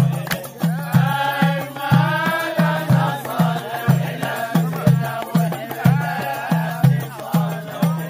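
Background music: a steady, even drum beat with a singing voice over it.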